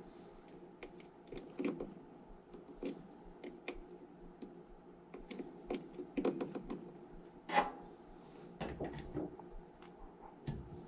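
Scattered light clicks and small knocks from hands working on furnace parts and tools, with one louder knock about two-thirds of the way through, over a faint steady hum.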